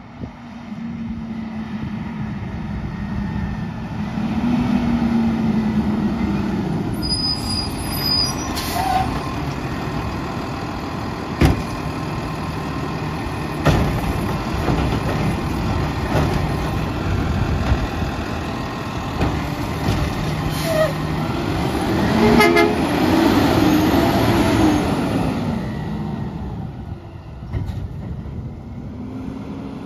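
Autocar ACX side-loader garbage truck running as its automated arm lifts and dumps a recycling cart, with a whining engine and hydraulics. Two sharp bangs come as the cart is shaken out at the top, and the engine and hydraulics rise and fall again near the end as the arm works.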